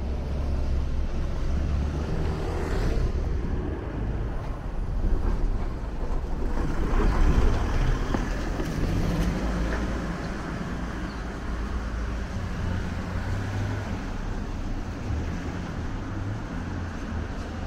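Low rumble of motor vehicles running close by on the street, swelling about a third of the way in and then easing to a steady traffic hum.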